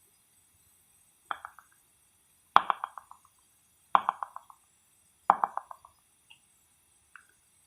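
Vocal sound-effect imitation: four short rattling bursts, evenly spaced about a second and a half apart, each a quick run of clicks that dies away.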